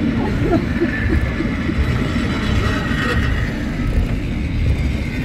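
Car of the water-powered Lynton & Lynmouth cliff railway running on its rails: a steady low rumble of the wheels on the track, with a faint higher whine.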